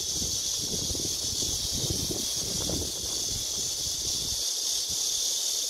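Typhoon wind gusting across the microphone and through the reeds, an uneven low rumble that eases briefly near the end, over a steady high-pitched hiss.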